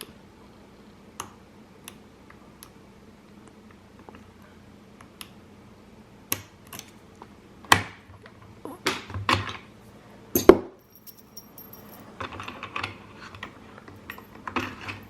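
Padlocks and lock-picking tools being handled: scattered metallic clicks, clinks and light rattles, with sharper knocks about eight and ten and a half seconds in.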